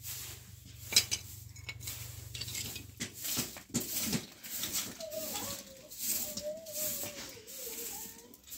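Short-handled straw broom sweeping a dirt floor in quick, scratchy strokes. From about five seconds in, a faint long wavering tone sounds behind the sweeping.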